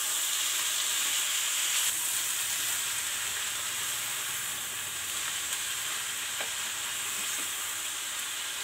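Green gram and amaranth greens sizzling in hot oil in a kadai, with a steady hiss, while a wooden spatula stirs and scrapes them around the pan.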